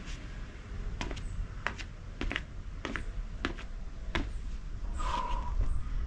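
Sharp taps of shoes landing on a deck during standing kicks, about one every 0.6 seconds, and a brief pitched sound about five seconds in.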